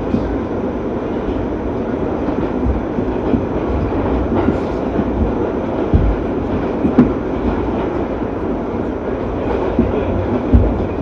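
New York City subway train running at speed: a steady rumble of steel wheels on rail, with a few low thumps from the wheels, one about six seconds in and another near the end.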